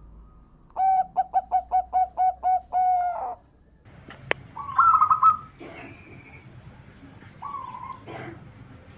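Zebra dove (perkutut) cooing: a quick run of about eight short staccato coos ending in one longer note. A sharp click follows, then fainter calls from other birds.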